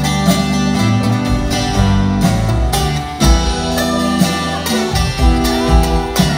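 Live band playing an instrumental passage: guitars over steady low notes and a drum beat, with no singing.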